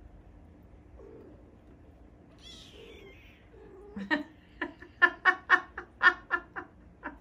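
Sphynx kitten giving a rapid run of short, sharp mews, about three to four a second, starting about four seconds in, while it is wrestled by another kitten in a play fight.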